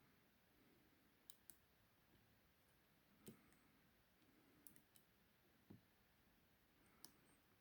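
Faint, sparse metallic clicks from picking a 50 mm laminated pin-tumbler padlock: the pick working the five pins and pins setting, about seven separate ticks spread a second or so apart.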